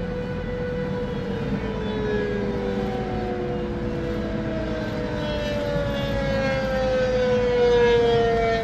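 Outdoor tornado warning siren wailing, several tones that hold or slowly slide down in pitch, heard from inside a moving car over its road noise.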